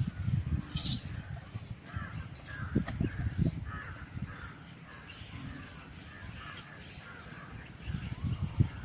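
Birds calling over and over in short caw-like calls, with low rumbling gusts on the microphone at the start, about three seconds in and near the end.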